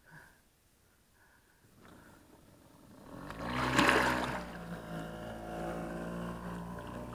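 Near silence, then a small boat motor starts about three seconds in, swells briefly and settles into a steady run.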